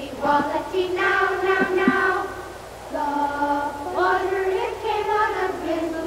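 Children's voices singing together, a simple melody of held notes.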